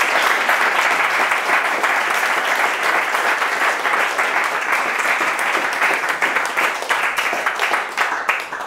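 Audience applauding: dense, steady clapping that thins to a few scattered claps near the end and then stops.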